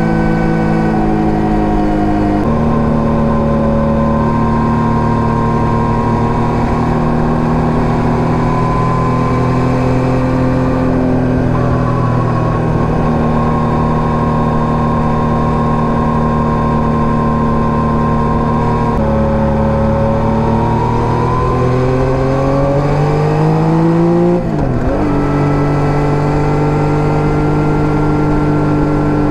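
Yamaha MT-09 gen 3's 890 cc inline-three engine through an SC Project STR-1 exhaust, running at steady revs for most of the time. About two-thirds in, the revs climb under acceleration, drop sharply with a gear change, then hold steady again.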